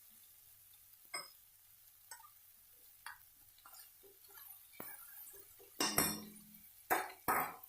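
Cookware and utensils clinking and clattering against a pan: a few light clinks, then a louder clatter about six seconds in and two sharp knocks near the end.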